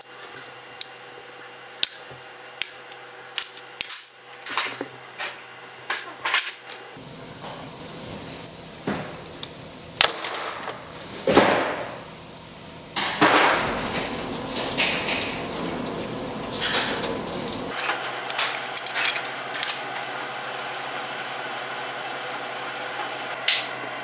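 Small steel fuel-injector parts clicking and clinking against a metal parts tray as they are sorted by hand: a string of sharp, separate taps. Later come stretches of steadier rushing hiss from the cleaning work.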